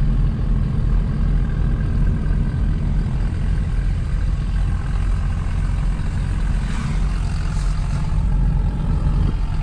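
Steady low engine and road drone heard inside a small car's cabin while driving slowly, at about 22 km/h, close behind a diesel farm tractor.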